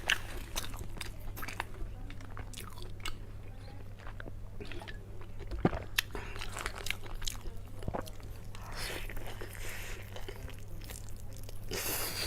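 A person chewing and biting food close to the microphone, with crunching and many short wet clicks from the mouth.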